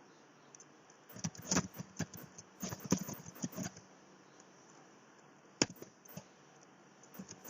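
A quick irregular run of clicks and knocks about one to four seconds in, then a single sharp click and a few more clicks near the end.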